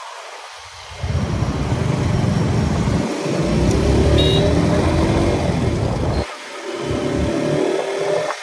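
Sport motorcycle engine accelerating away from a near standstill, its pitch rising as it revs, with wind rumble on the helmet-mounted phone. The sound breaks off briefly about three seconds in, drops sharply about six seconds in, then picks up again.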